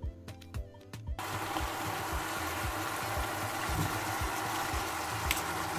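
Background music with a steady beat, then, from about a second in, a steady sizzling hiss of seasoned chicken wings and onions cooking without water in a steel pot on the stove, with the music's beat still under it.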